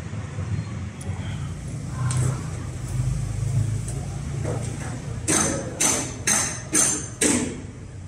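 Five sharp metallic strikes, about two a second, each ringing briefly, as steel is struck at the rebar mesh. Under them runs a low steady rumble.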